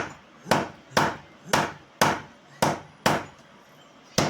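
Blacksmith's hammer striking hot steel, forging a hatchet head: eight heavy, dull blows at about two a second, each dying away quickly, with a short pause before the last.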